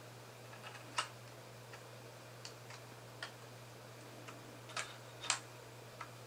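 3D-printed plastic trigger parts clicking and knocking together as the main trigger is fitted into the trigger block: a scattering of short, sharp clicks, the loudest about a second in and again just after five seconds. A steady low hum runs underneath.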